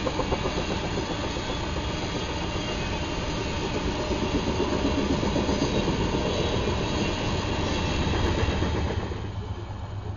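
Freight train of loaded coal cars rolling past, steel wheels rumbling and clattering on the rails. The sound drops away about nine seconds in.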